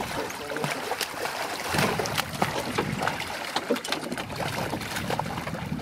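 Hooked blue catfish thrashing at the surface beside the boat: irregular water splashing.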